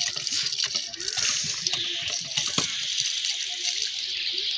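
Water gushing from a hand pump's spout and splashing over a bundle of sugarcane stalks held under it, running off onto a wet concrete platform. It is a steady splashing hiss, with one sharp click about halfway through.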